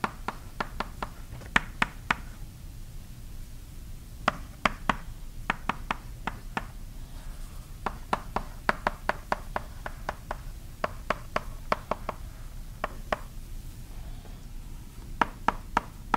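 Chalk tapping on a blackboard as a diagram is written: a string of sharp, irregular taps, several a second, with short pauses about three seconds in and again near the end.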